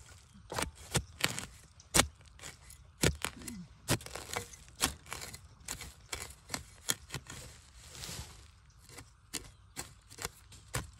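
A long-bladed knife chopping into soil and dry bamboo leaf litter to dig out a bamboo shoot, in a rapid, uneven series of sharp strikes.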